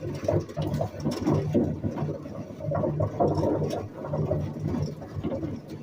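Steel Radio Flyer wagon rolling over rough ground: a continuous wheel rumble with irregular clatter from the wagon body and wheels.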